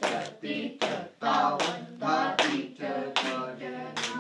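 Sharp hand claps keeping a steady beat, with a man's voice reciting tabla bols of a kaida in short sing-song syllables.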